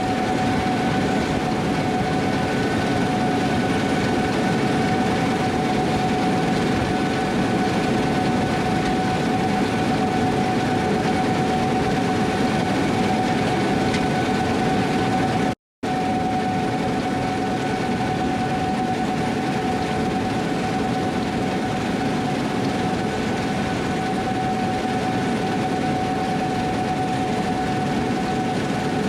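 Gleaner S78 combine running under harvest load, a steady drone with a constant high whine over it. The sound drops out for a split second a little past halfway.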